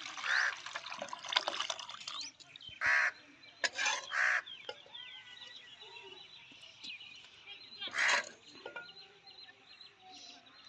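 Broth splashing as it is poured from a pot into a bowl for the first two seconds or so. Crows caw about five times, short separate caws, with faint small-bird chirps in between.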